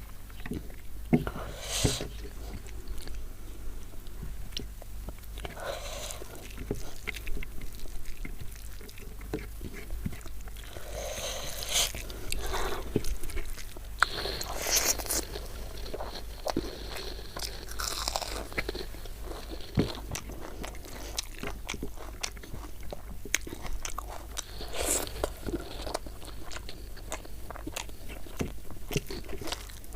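Close-miked eating: a person chewing and biting food with many small mouth clicks and several louder crunching bites, over a steady low hum.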